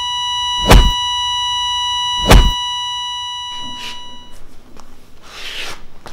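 Two heavy thuds, about a second and a half apart, over a steady high ringing tone that cuts off about four seconds in, followed by faint shuffling and rustling.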